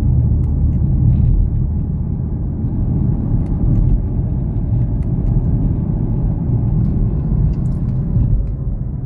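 Audi S5 Sportback's supercharged 3.0 TFSI V6 and road noise heard from inside the cabin as the car drives along in sixth gear, a steady low rumble. The faint engine note drifts gently down in pitch over the second half.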